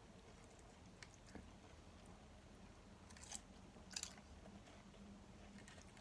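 Faint chewing of a taco made with crunchy Doritos chips, with a few soft crunches; the loudest comes about four seconds in.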